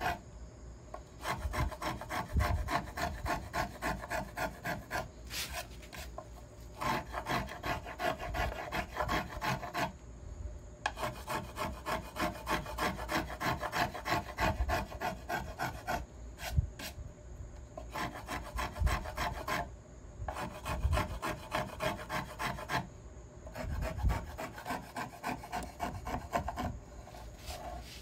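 Small toothed finger plane scraping across the carved arch of a flamed maple violin plate in short, quick strokes, several a second. The strokes come in runs with brief pauses as the plane is repositioned, smoothing the arch.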